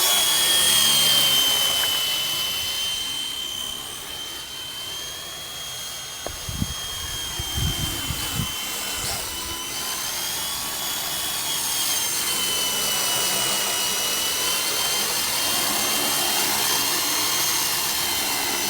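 Small electric RC helicopter, a WLtoys V912 fixed-pitch flyer, in flight: a high steady rotor-motor whine. The whine fades a little a few seconds in and then grows louder again, with a few low rumbles near the middle.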